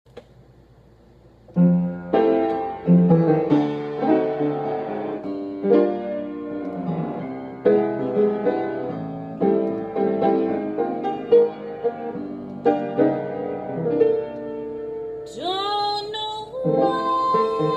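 Solo piano playing a slow ballad introduction in sustained chords. Near the end a singing voice enters, sliding up into the first line of the song.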